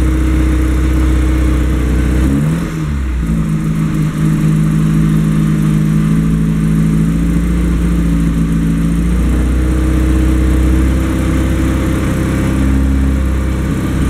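Carburetted Alfa Romeo engine idling, heard from the driver's seat, with its note shifting about two and a half seconds in and settling back around nine seconds in. It is warming up after a hesitant cold start and running well.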